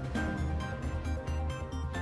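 Background music with a steady beat and a pulsing bass line, the music bed under a TV news bulletin.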